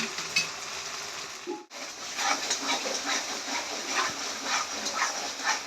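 Spice paste frying in oil in a kadai, sizzling with many small crackles and pops as the oil separates from the masala. The sound drops out briefly about a second and a half in.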